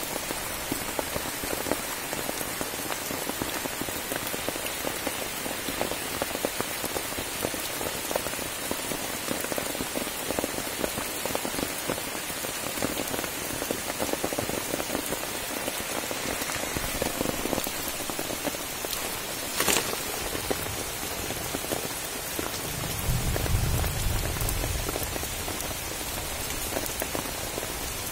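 Steady rain falling on wet leaf litter, a dense patter of drops, with a sharp click about two-thirds of the way through and a low rumble for a couple of seconds near the end.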